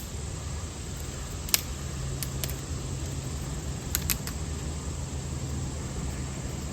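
Kindling sticks being handled and bent: a few scattered sharp clicks and small cracks over a steady low hum. The branch is still somewhat green and bends rather than snapping cleanly.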